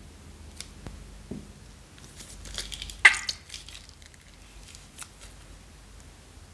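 Scissors snipping the corner of a small plastic zip bag of slime, then the plastic crinkling as the bag is squeezed empty, with one sharp loud crackle about three seconds in and a few lighter clicks after.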